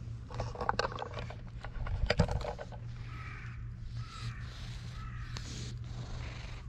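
Crackling rustle of a cat's fur brushing and rubbing against the camera's microphone while it is petted, in two spells in the first few seconds. A few faint short calls sound in the background later on.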